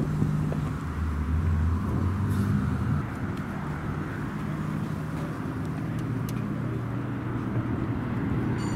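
A car engine idling with a steady low hum, louder for the first three seconds and softer after that.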